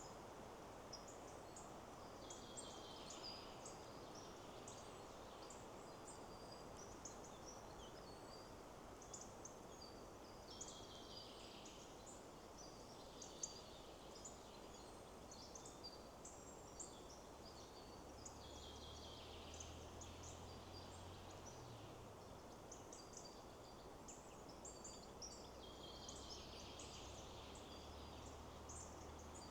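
Quiet forest ambience: small birds chirping in short, high calls throughout, with one bird repeating a longer song phrase about every eight seconds, over a steady soft rush of wind in the trees.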